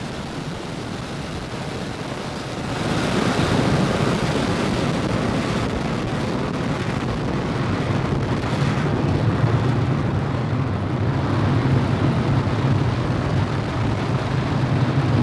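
Falcon 9 rocket's nine Merlin 1D first-stage engines running during ascent: a loud, steady, deep rumbling noise that gets louder about two and a half seconds in.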